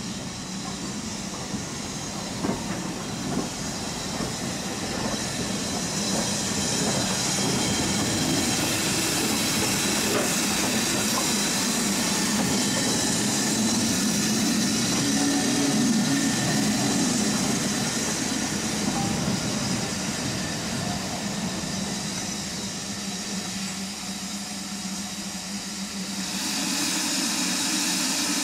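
Ivatt Class 2MT 2-6-2T steam tank locomotive hissing steam at close quarters, with a few light knocks from the engine. The hiss swells over the first half, eases, then jumps louder and brighter near the end.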